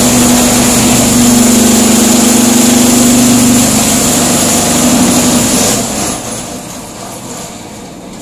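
Concrete block-making machine running with a loud, steady hum. About six seconds in the hum stops and the noise drops to a much quieter machine sound.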